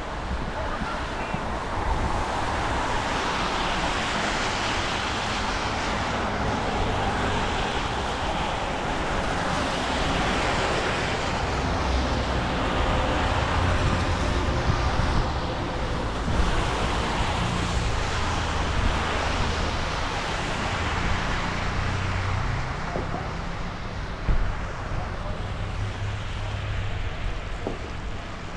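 Wind buffeting the microphone over a steady wash of street traffic noise.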